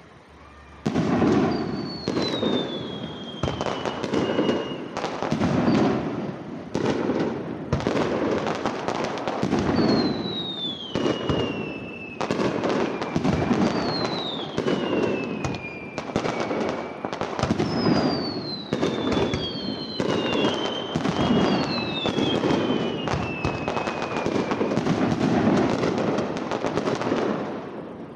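Fireworks display: shells bursting with booms every couple of seconds over continuous crackling, starting about a second in. Several whistling effects glide down in pitch, some overlapping near the middle.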